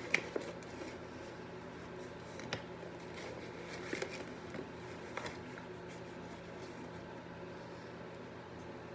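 A few soft rustles and taps as a paper bag of flour is worked open and a measuring cup is handled, over a steady low hum.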